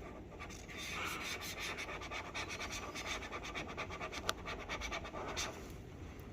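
Rapid back-and-forth scraping at baked-on grease on a kitchen stovetop, several strokes a second, starting about a second in and stopping shortly before the end.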